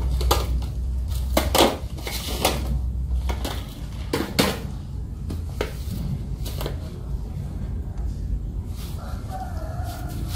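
Rustling and short knocks from handling potted plants and black plastic pots, over a low rumble that fades after about three seconds. About nine seconds in, a rooster crows in the background.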